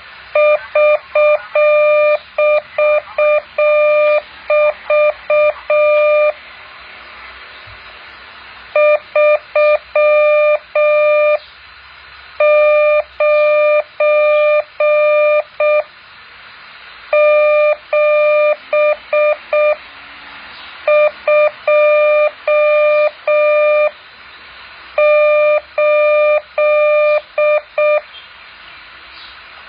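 Morse code practice tone, a single steady pitch near 600 Hz keyed on and off in dots and dashes, sent in six groups with pauses of about a second between them, over a steady hiss.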